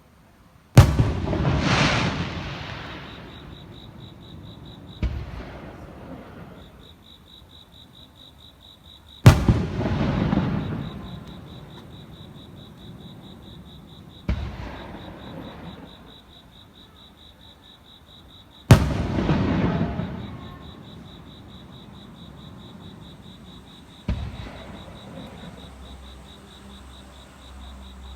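Aerial firework shells bursting: three loud bangs about nine seconds apart, each followed by a rumble that dies away over several seconds and by a fainter bang about five seconds later. A steady, high, pulsing insect chirping runs underneath.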